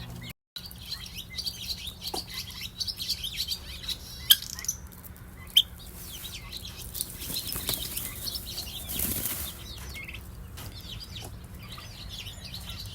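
Many small birds giving short, high chirps throughout, over rustling and flapping of feathers. A broader feather rustle comes about nine seconds in, and two sharp clicks come a few seconds earlier.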